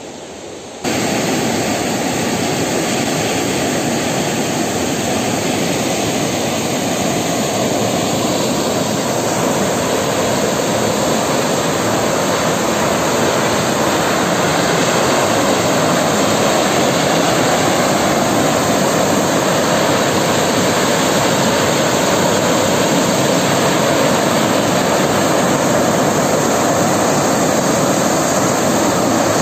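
Steady rushing of a high-pressure water jet spraying from an open dam outlet gate. It starts abruptly about a second in and holds at an even level.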